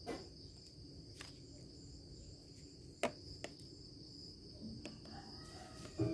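Faint, steady, high-pitched insect trill in the background, with a few soft handling clicks.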